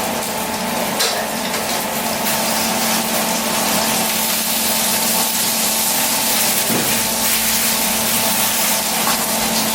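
Steady hiss of food cooking on the stovetop, over a constant low hum.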